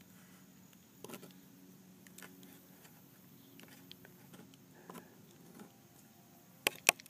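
Scissors snipping earthworms on a wooden board: a few faint snips, then near the end a quick run of sharp clicks, about five a second.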